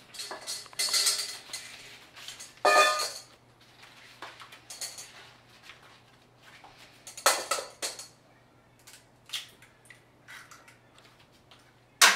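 Kitchen utensils and containers clinking and scraping against a stainless steel mixing bowl in irregular bursts, with a faint steady low hum underneath.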